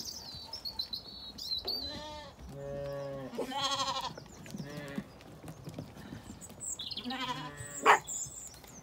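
Zwartbles sheep bleating several times, some calls deep and some higher and wavering. A short, sharp sound near the end is the loudest thing heard.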